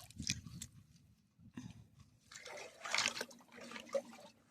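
Shallow creek water splashing and sloshing as hands dig and pry a small brick out of the streambed. A few knocks in the first second and a half, then a longer splashing swish about two and a half seconds in.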